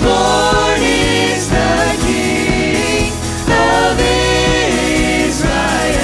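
Mixed vocal group of men and women singing a Christmas carol in harmony, with held notes, over band accompaniment.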